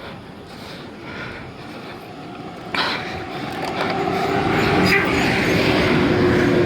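A person breathing hard while climbing a hill. About three seconds in, a passing motor vehicle comes in suddenly and grows loud with a steady drone, drowning out the breathing.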